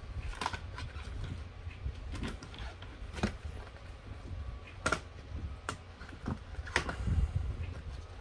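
Handling noise: light clicks, taps and rustles as gloved hands move the plastic magnifier panel in its wooden stand and the paper card behind it, about half a dozen distinct clicks over a low rumble.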